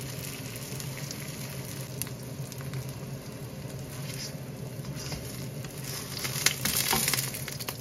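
Zucchini pancakes shallow-frying in oil in a nonstick wok, sizzling with scattered crackles over a low steady hum. From about four and a half seconds in, a plastic spatula scrapes and shifts them in the pan, and the sizzling and crackling grow louder.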